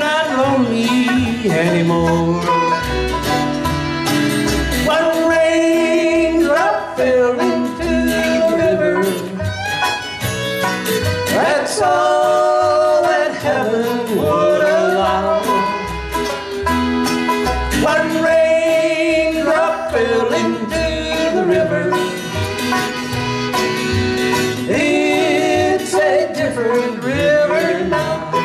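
Bluegrass band playing live: banjo, fiddle, acoustic guitar and upright bass, with a singing voice over them.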